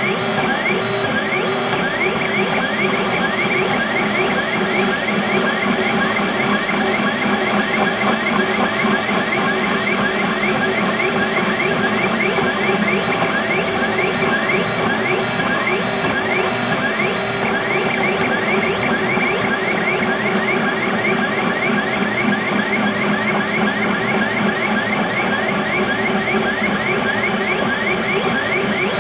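XYZ da Vinci Mini W+ 3D printer running a print: its stepper motors whine in several steady tones, broken by a quick string of short rising chirps as the print head moves back and forth.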